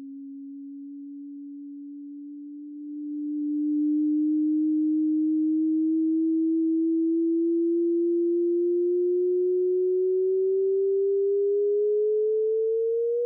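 A single pure sine tone gliding slowly upward in pitch, getting louder about three seconds in and rising faster near the end: a sonification, with data values mapped to the pitch and loudness of the tone.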